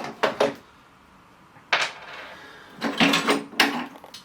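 Tools and items being handled and set down while a toolbox is unpacked: a handful of sharp knocks and clatters, the busiest cluster about three seconds in.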